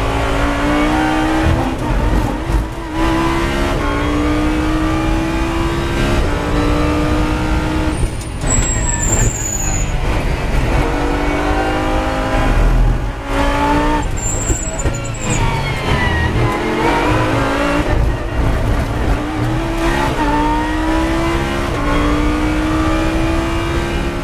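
Lamborghini race car's V10 engine heard from inside the cockpit on a qualifying lap. The revs repeatedly climb under throttle, fall away into corners, then rise as it pulls up through the gears onto a straight near the end.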